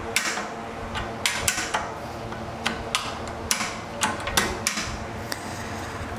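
Steel adjustment lever and catcher knob of an adjustable weight bench clicking and knocking against the slotted mild-steel side plates as the backrest angle is moved: about a dozen irregular sharp clicks.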